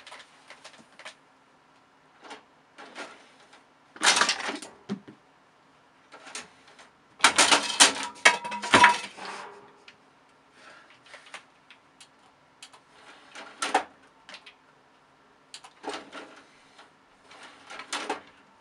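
Irregular knocks and clatter of hard objects, with two louder bursts of rattling: one about four seconds in and a longer one between about seven and nine seconds in.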